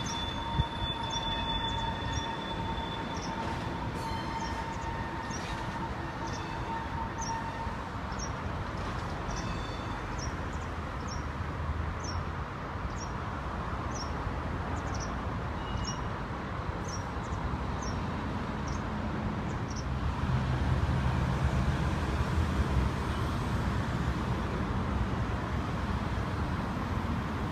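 C14 metro train running slowly past into the depot shed, a steady high-pitched tone over its rumble that fades out about eight seconds in. From about twenty seconds in, a louder low engine rumble from a road vehicle joins.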